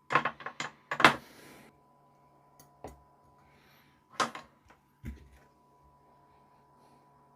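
Small hard objects being handled on a workbench: a quick cluster of clicks and taps in the first second and a half, then a sharp click about four seconds in and a duller knock just after five seconds. A faint steady electrical hum runs underneath.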